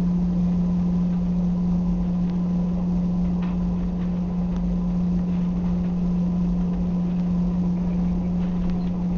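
Airbus A320 cabin noise while taxiing: the engines running at low taxi thrust make a steady low hum over a constant rumble, with a few faint clicks.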